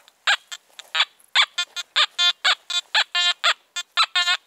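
Anfibio Multi metal detector giving its target tones: a rapid run of short, buzzy beeps, about three to four a second, as the coil sweeps over foil from a cigarette pack, which it identifies as 20.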